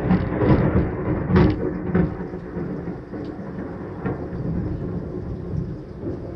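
A thunder peal rumbling, with a few swells in the first two seconds, then slowly dying away over the hiss of heavy rain.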